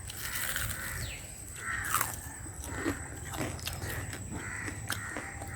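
A few short, harsh animal calls, one after another.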